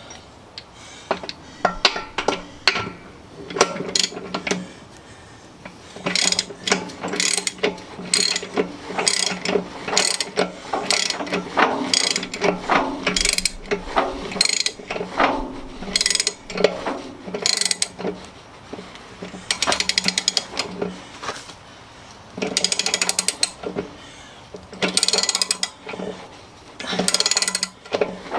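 Ratchet wrench clicking in repeated bursts of rapid clicks, about a second each, while bolts on a Ford 8N tractor's wheel rim are tightened.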